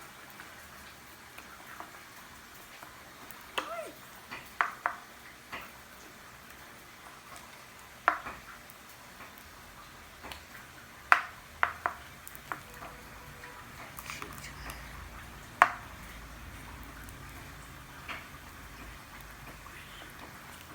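A spoon stirring slime in a container, with irregular sharp clinks of the spoon against the container's sides.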